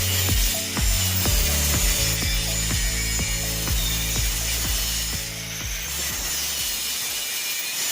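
Background music with a steady beat and a stepping bass line, thinning out near the end.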